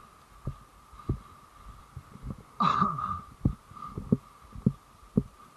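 Dull, irregular thumps of walking and gear knocking against a body-worn camera, about two a second, over a faint steady hum. A brief louder rustle comes about three seconds in.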